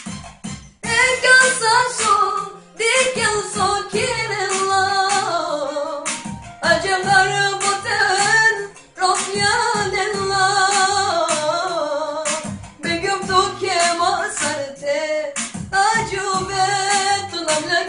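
A song: a solo singing voice carries an ornamented melody that bends and wavers, in phrases with short breaks between them, over instrumental backing with a stepping bass line.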